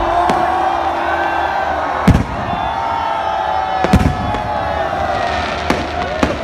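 Fireworks going off over a crowd: two loud bangs about two seconds apart, a few fainter pops near the end, and long whistling tones over steady crowd noise.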